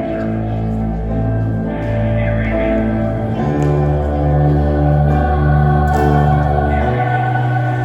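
Recorded instrumental music playing, with held notes over a bass line that changes every second or so and fades slightly near the end.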